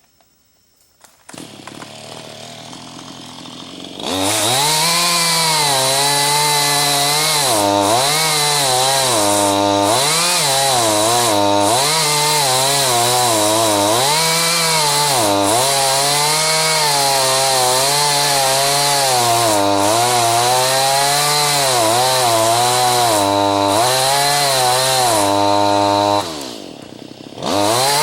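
Chainsaw comes in at idle about a second in, then runs at full throttle from about four seconds. Its pitch repeatedly sags and recovers as the chain loads up in green ash wood, a saw struggling for power. It drops back to idle briefly near the end, then revs up again.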